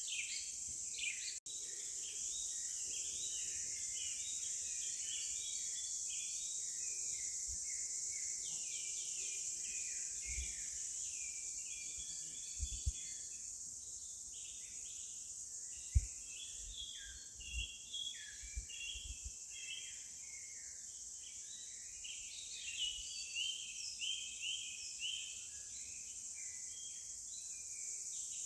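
Forest ambience: many small birds chirping and twittering over a steady high-pitched insect drone. There is a momentary dropout about a second and a half in, and a few soft low thumps midway.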